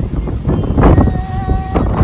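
Wind buffeting the microphone in a steady low rumble, with people's voices calling out over it, one voice holding a note for about half a second near the middle.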